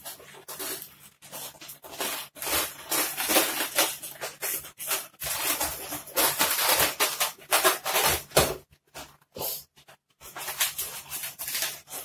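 Latex modelling balloons squeaking and rubbing as they are twisted and bent by hand, in irregular stretches with short pauses.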